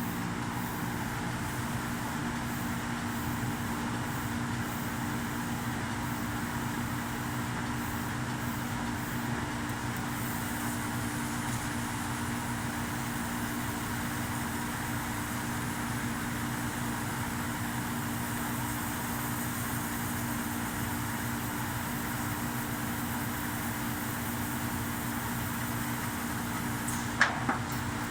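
CNC laser cutting machine running on 20 mm steel plate: a steady hum with an even hiss over it, and one short click near the end.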